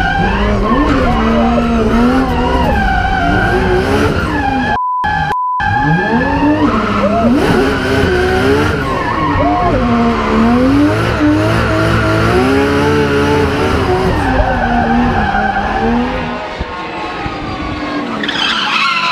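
RB26 twin-turbo straight-six in a BMW M3 drift car revving up and down over and over through a drift run, heard from inside the cabin, with tyres squealing. A short electronic beep cuts in once, about five seconds in, and near the end the car is heard from outside, sliding past.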